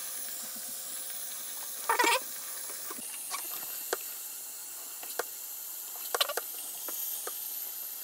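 Faint steady hiss of water running through a siphon hose into a portable washing machine tub, with scattered clicks and a few short squeaks.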